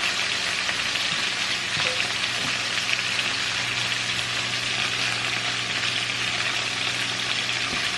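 Chicken pieces sizzling steadily in oil in a frying skillet as they brown, with a steady low hum underneath.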